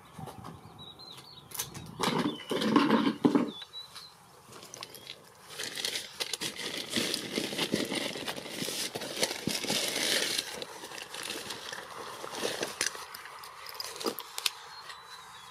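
Wind gusting and buffeting on the microphone, with rustling.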